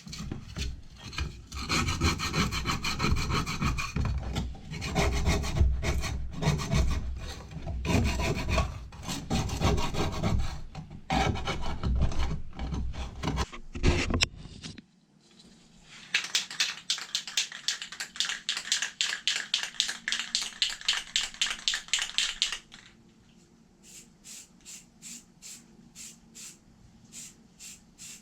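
Hand scraping and rubbing on starter motor parts: rough, irregular scraping for about fifteen seconds, then quick regular strokes at about four a second, then fainter, slower strokes near the end.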